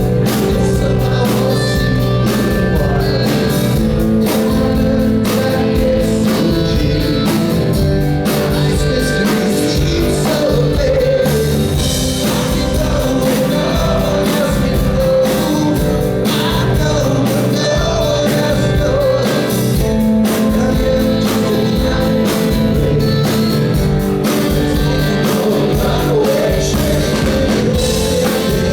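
A rock band playing live with a singer, electric guitars and a drum kit, loud and continuous.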